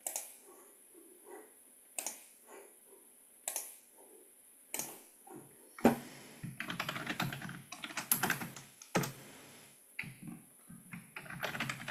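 Computer keyboard typing: a few separate key clicks, then a quick run of typing about six seconds in, a short pause, and more typing near the end.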